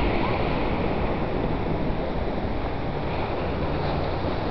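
Steady wash of Pacific surf breaking on a pebble beach and rocks, mixed with wind noise on the microphone.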